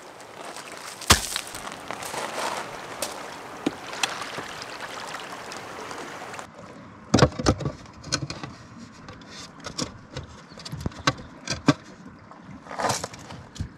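Stones knocking and scraping as they are handled and fitted into a stone-and-clay kiln: one sharp knock about a second in, then a scattered string of clicks and knocks in the second half. Small waves wash on the shore behind the first half.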